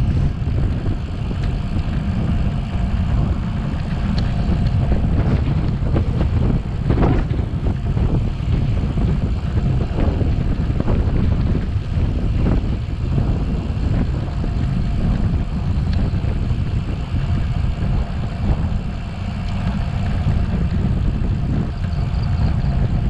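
Wind buffeting the microphone of a camera on a moving bicycle: a steady low rumble, with scattered knocks and rattles from the ride.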